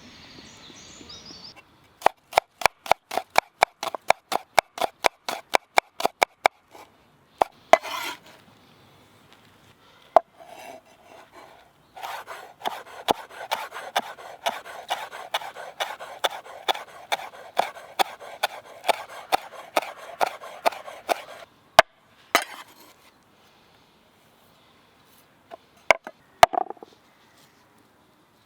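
Knife chopping food on a wooden cutting board in quick, even strokes, about four a second. A short run comes a couple of seconds in, and a longer, denser run with a scraping rub between strokes follows near the middle. A few single knocks come near the end.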